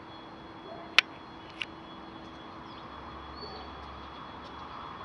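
Quiet open-air ambience at a railway platform with faint bird calls and a steady faint tone. A sharp click comes about a second in, and a smaller one just after.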